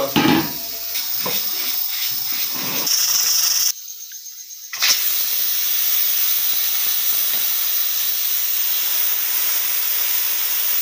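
Pressure cooker cooking chickpeas, hissing steadily as steam escapes past its weight valve; a few handling knocks come before the hiss settles in.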